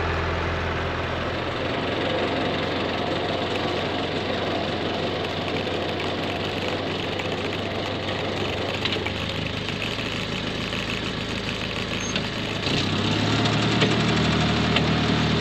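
Engine of a farm vehicle running steadily. About 13 seconds in, its note gets louder and deeper, as if taking up load or speeding up.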